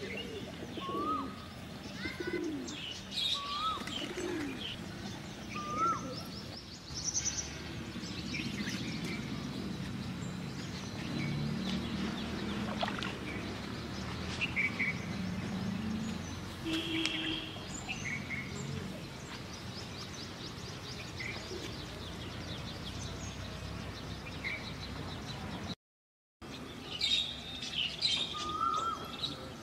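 Wild birds chirping and calling in the open, a string of short chirps and quick rising notes. A low steady hum sits underneath in the middle stretch, and the sound cuts out completely for about half a second near the end.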